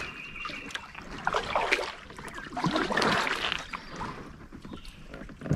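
Kayak paddle strokes in calm river water: the blade dipping and splashing, with water dripping off it between strokes.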